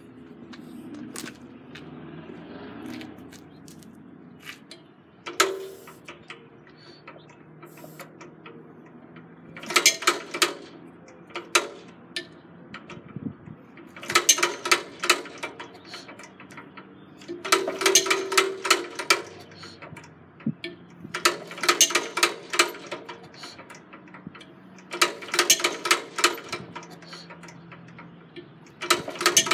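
A 1935 McCormick-Deering LA single-cylinder engine being turned over by hand. About six times, every three to four seconds, the flywheel is spun, giving a burst of rapid mechanical clicking of about a second and a half. The engine does not catch and run.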